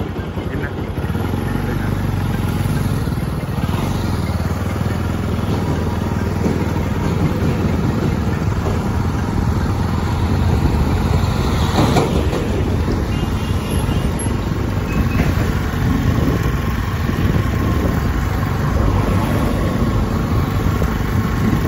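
Engine and road noise of a motor vehicle driving along a road, heard from on board and running steadily, with a brief louder rush about twelve seconds in.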